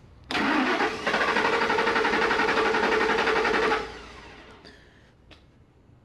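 Starter motor cranking the engine for about three and a half seconds, with a fast, even pulsing from the compression strokes, then stopping. The cranking is part of a relative compression test, in which starter current draw is read for each cylinder.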